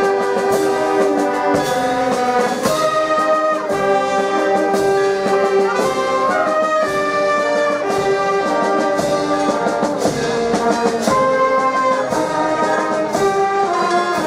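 Wind band of trombones, trumpets, saxophones and clarinets playing a tune in held notes, with a bass drum keeping a steady beat.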